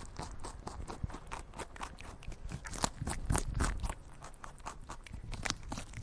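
Rabbit chewing sound effect: quick, irregular crunching and munching clicks that run on steadily.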